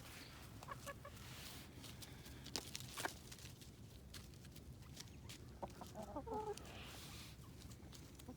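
Backyard chickens clucking softly, with a short pitched call about six seconds in and a few sharp clicks early on.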